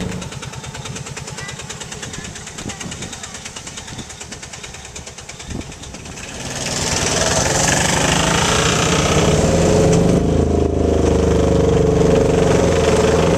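Tuk tuk (three-wheeled motor rickshaw) engine running with a fast, even putter. About halfway through it gets louder, with a rushing hiss on top of the engine note.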